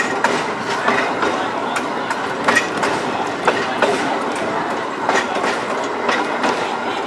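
Heritage electric streetcar running along the track: a steady running noise broken by irregular clicks and knocks, one or two a second, as the wheels pass over rail joints.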